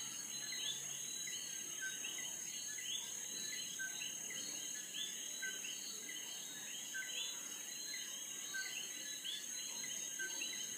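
A chorus of Puerto Rican coquí frogs, each giving its two-note 'co-quí' call with a rising second note, about two calls a second from several frogs. A steady high-pitched whine runs beneath it.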